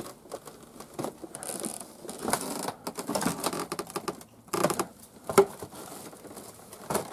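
Footsteps crunching and scraping over rubble and loose wooden boards on a collapsing floor, in irregular clicks and crackles, with a sharp knock a little after five seconds in.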